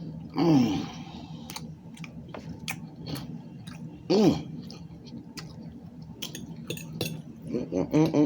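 A person chewing food close to the microphone, with wet mouth clicks and smacks throughout. Twice a short voice sound falls in pitch, and there is a brief burst of voice near the end.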